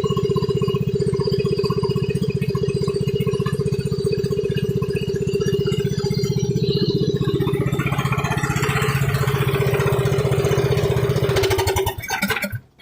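Small engine, such as a lawnmower's, running steadily at a constant speed, then shutting off shortly before the end.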